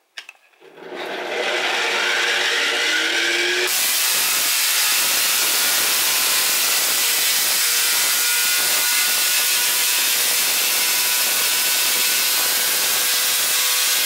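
An angle grinder spinning a rotary spark gap winds up with a rising whine. About four seconds in, the spark gap Tesla coil starts firing: a loud, steady, crackling buzz of high-voltage sparks streaming from its toroid, which cuts off suddenly at the end.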